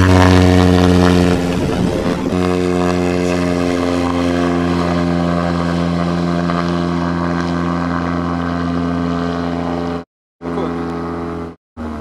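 Engine and propeller of an LN-3 Seagull amphibian ultralight running with a steady drone as the plane skims across the water on its hull. It is loudest in the first second or so, and the sound cuts out abruptly twice near the end.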